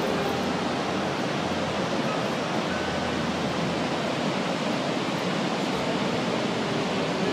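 Large waterfall plunging into a deep rocky gorge: a steady, unbroken rush of falling water.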